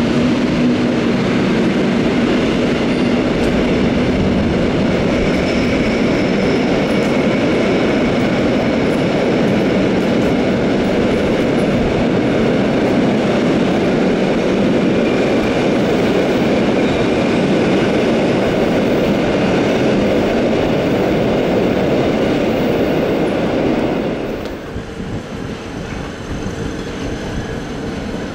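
Rhaetian Railway metre-gauge train moving through the station: a steady, loud rumble of wheels on rails with a faint high squeal. About 24 seconds in, the noise drops suddenly to a quieter, steady train hum.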